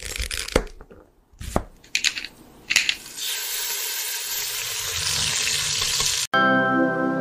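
Animated intro sound effects: a few quick whooshing hits, then a steady hiss. About six seconds in the hiss cuts off suddenly and soft music with sustained notes begins.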